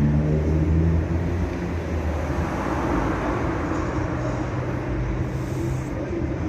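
Road traffic: a motor vehicle engine running with a low hum over a steady road-noise hiss.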